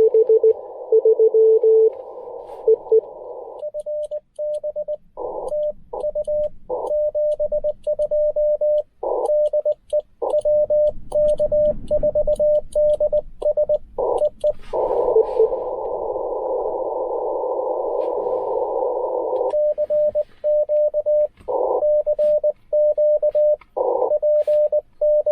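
Ten Tec Argonaut V transceiver in a Morse code (CW) exchange. It opens with the receiver's hiss carrying a weaker, lower-pitched station's Morse. About four seconds in, the rig's sidetone starts keying dits and dahs as the operator sends, with brief snatches of hiss between characters. Around fifteen seconds in, about five seconds of plain receiver hiss comes between two spells of sending.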